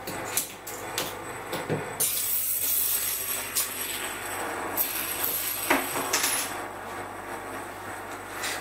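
Small metal spinning tops and their starting gear being handled: a run of sharp clicks and light knocks, with a hissing whir from about two seconds in until about six seconds.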